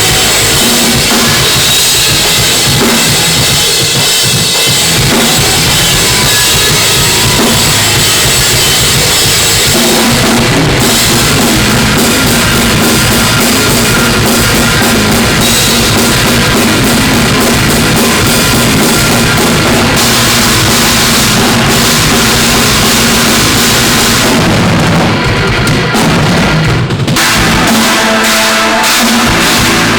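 Metalcore band playing loudly at full tilt, with the drum kit's bass drum and cymbals prominent over the rest of the band. Near the end the cymbals drop out for a couple of seconds before the full band comes back in.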